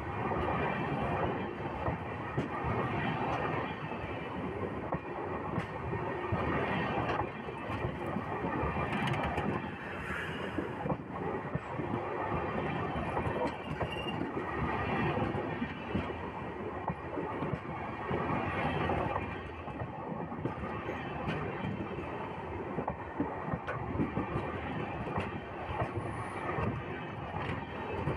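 Train coaches rolling past at rail level: a continuous rumble and clatter of steel wheels running on the rail beside the microphone, with a faint high wheel squeal.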